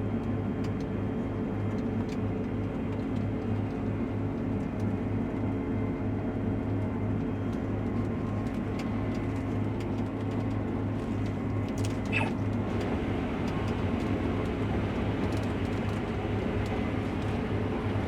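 Case IH Axial-Flow combine running steadily under harvest load, its engine and threshing drone heard from inside the cab, with a few faint clicks. A short high chirp comes about twelve seconds in.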